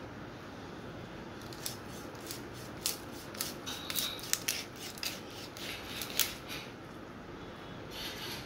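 Raw broiler chicken being cut against the upright blade of a boti: an irregular run of sharp snips and crackles as skin and flesh are sliced, bunched in the middle of the stretch, then a short rustle near the end, over a steady low background noise.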